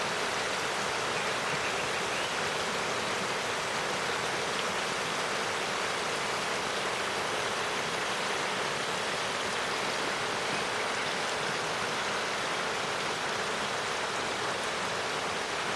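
River water running steadily over stones, a constant rushing babble.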